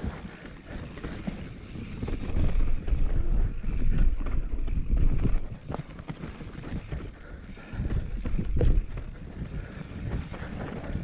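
Wind buffeting the microphone over the rumble of mountain-bike tyres rolling on a rough dirt and rock trail. Short clicks and knocks run through it as the bike rattles over bumps, and the rumble swells louder twice.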